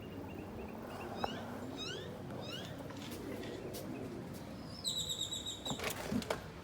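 Small birds chirping outdoors: a series of quick rising chirps, then near the end a high warbling note about a second long, followed by a few sharp clicks and knocks.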